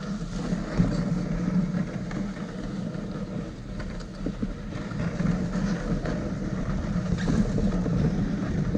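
Steady low hum and rushing noise of a rig travelling along a snowy trail behind a pulling dog team.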